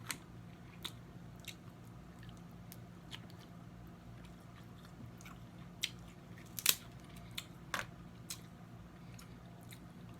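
Close-up eating sounds of snow crab legs: sparse sharp cracks and snaps of the shell and wet chewing, with two louder cracks about two-thirds of the way through, over a faint steady low hum.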